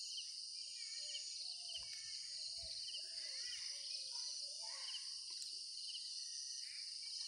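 Steady high-pitched drone of forest insects, with various birds calling and chirping over it.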